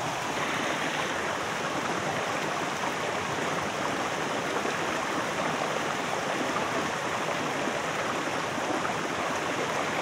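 Steady rush of water from a rocky forest stream, an even hiss that does not change.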